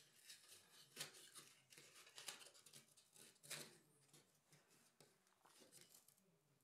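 Faint light clicks and scrapes of thin wooden parts being handled, as a laser-cut servo tray is pressed into the notches of a balsa wing frame. A few sharper clicks stand out in the first four seconds.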